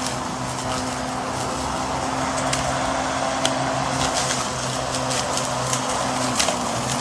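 Swift 40V brushless cordless lawn mower running with a steady electric-motor hum and blade whir as it cuts through tall grass and weeds, with several sharp ticks in the middle and near the end.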